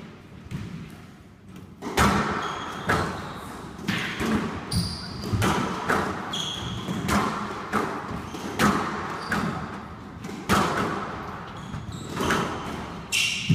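Squash rally: sharp knocks of the ball off rackets, walls and floor, roughly one every half-second to second, each with a short echo in the glass-walled court. Shoes give brief high squeaks on the wooden floor a few times.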